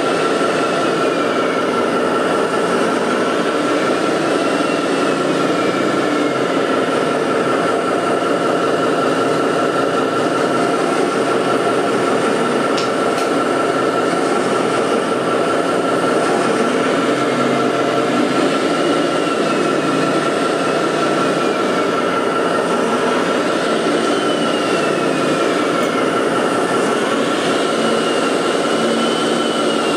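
Machinery running steadily with a constant high whine, while a second whine rises and falls every four to five seconds, as when a motor speeds up and slows down again.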